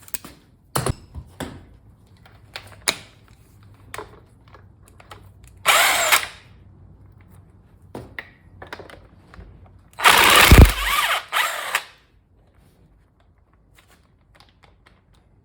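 Handheld power driver spinning bolts out of a transmission end cap in short bursts: one about six seconds in, then a longer one with two quick follow-ups around ten to twelve seconds. Light metallic clicks of tool and bolts come between the bursts.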